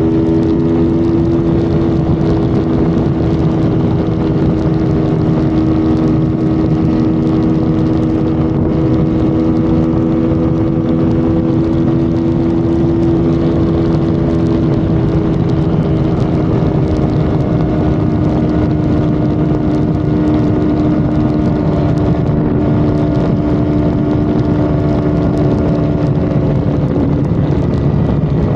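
Honda Civic FD engine droning steadily at highway cruising speed, its pitch easing down slightly, over constant tyre and wind noise.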